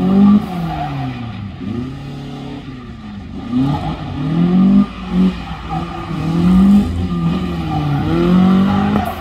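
Vauxhall Nova hatchback's engine revving hard and dropping back, again and again, as the car accelerates and brakes through a tight autotest course; the pitch climbs and falls every second or two.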